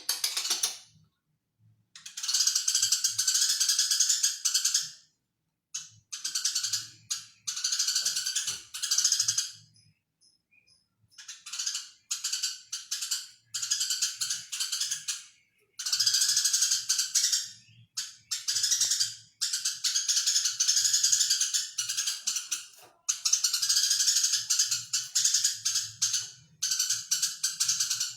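Eurasian tree sparrow chirping in fast, dense chattering bursts, each about one to three seconds long, with short pauses between.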